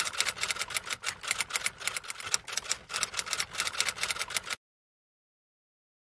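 Typewriter sound effect: a rapid run of keystroke clicks that stops abruptly about four and a half seconds in.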